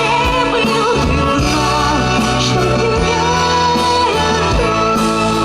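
Music: a song with a melodic singing voice, held notes wavering with vibrato, over a full instrumental backing with a regular beat.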